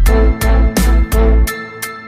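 Background music with a strong, steady beat: heavy bass hits and sharp percussion about three times a second, over sustained instrument tones.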